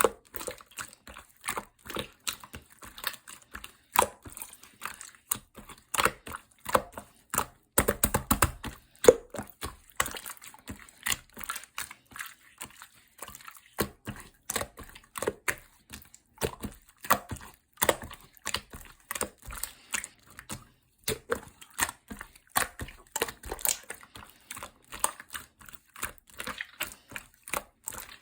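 Clear slime made with soothing gel being pressed and squeezed by hand, giving a fast run of small sticky clicks and pops. The clicking stops briefly about 13 and 21 seconds in.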